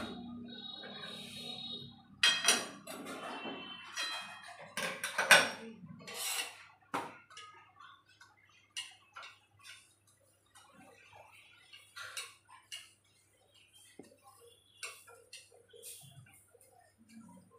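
Metal kitchen utensils clattering and clinking: a steel spatula knocking and scraping on a flat griddle pan and against steel pots. There is a dense run of sharp knocks for a few seconds, then scattered light clicks.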